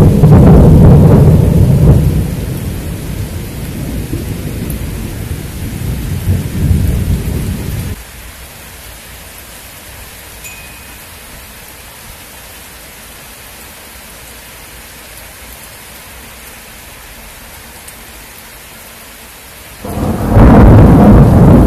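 Thunder rumbling loud and low, fading away over several seconds, then steady rain. Near the end a second loud rumble of thunder breaks in suddenly.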